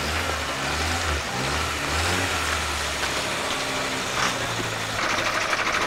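Vintage open touring car's engine running at low speed, its low pulsing note rising and falling slightly as it is blipped, then settling. About five seconds in, a brighter rapid ticking comes in.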